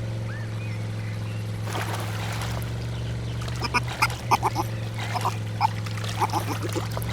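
Cartoon sound effects: a steady low motor hum, with a brief rush about two seconds in. From about three and a half seconds on come many short, high squeaky animal calls.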